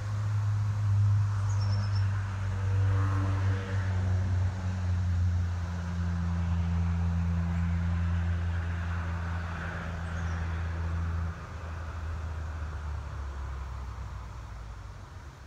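A steady low mechanical hum from a running machine, which drops in level about eleven seconds in.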